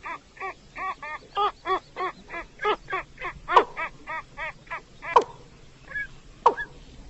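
Watercock calls: a fast run of short, hollow, pitched notes, about four to five a second, with a few louder notes that slide downward. About five seconds in the run stops, leaving a few scattered sliding notes.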